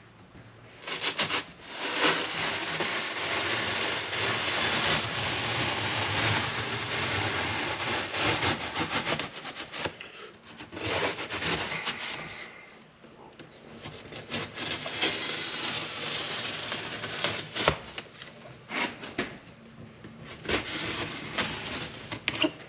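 Fiberglass ductboard being sawn through with a knife, giving noisy scraping cuts in long stretches with short bursts and sharp knocks in between. This is a hole being cut into a ductboard plenum.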